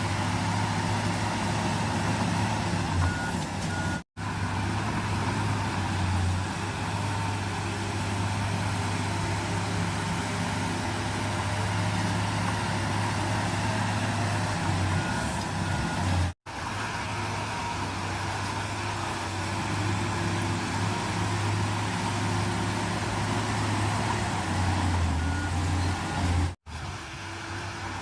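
Komatsu bulldozer's diesel engine running steadily under load with a deep hum, and a few short high beeps typical of a reversing alarm. The sound cuts out abruptly three times for a split second.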